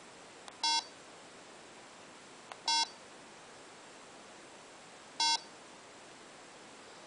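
Three short electronic beeps, about two seconds apart, from the speaker of a homemade commlock prop as its buttons are pressed; a faint click comes just before the first two beeps.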